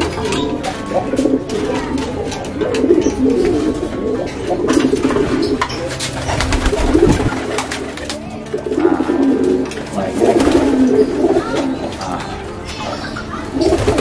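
Domestic pigeons cooing over one another without a break, with short wing flaps and scuffles among the birds. Young males are cooing as they begin to court and drive the hens.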